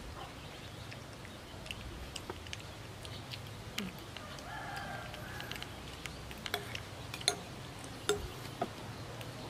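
A metal spoon clicks and scrapes against a ceramic bowl several times, the sharpest clicks in the second half, with an animal call about a second long in the background near the middle.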